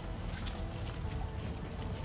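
Footsteps crunching over dry leaves and sandy ground, with a low rumble beneath.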